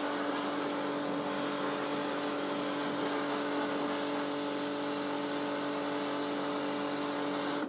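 Pressure washer wet-blasting a steel frame: a loud, steady hiss of the water jet carrying blasting grit, with a steady machine hum beneath it.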